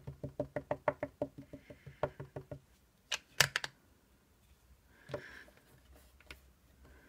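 Rubber stamp and ink pad tapped together in a fast run of light taps, about six a second, to load more black ink onto the middle of the stamp. The taps stop after about two and a half seconds. Two louder knocks come a little after three seconds in, and a short soft rustle near five seconds.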